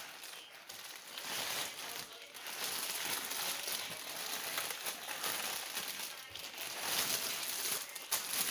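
Plastic crinkling and rustling as a backpack in clear plastic wrap is pulled out of a polythene courier mailer. The sound is irregular and gets louder a couple of seconds in.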